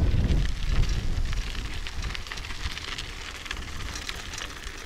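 Bicycle rolling along a sandy dirt road, with many small clicks and crackles from the tyres and bike. Wind rumbles on the microphone, loudest in the first second and then easing.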